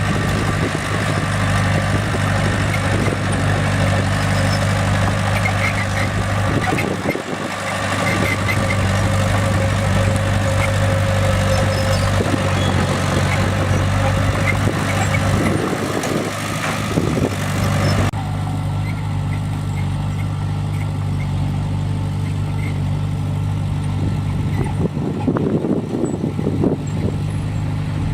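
Bulldozer's heavy diesel engine running steadily under load. The hiss above it drops away abruptly about two-thirds of the way through, and a few knocks come near the end.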